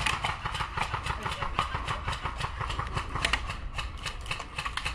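Airsoft guns firing: a dense, irregular clatter of short clicks that keeps up throughout, over a steady low rumble of wind on the microphone.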